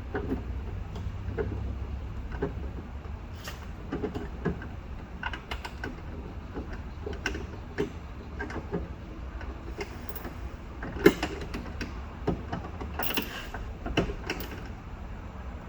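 Irregular metal clicks and taps of a socket and extension turning a loosened bolt out inside a car door, over a steady low hum. The sharpest click comes about eleven seconds in, and a few more come quickly about two seconds later.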